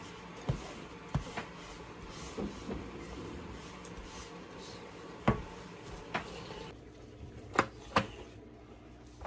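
A series of separate sharp knocks and clicks, the loudest about five seconds in and two close together near the end, over a low steady background hum that changes about two-thirds of the way through.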